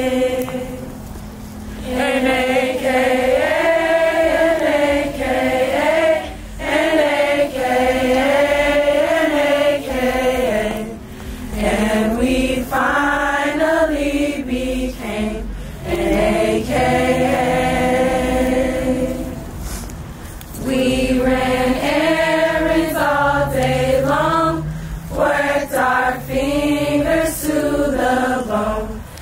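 A group of women singing together with no instruments, in long held phrases broken by short pauses for breath.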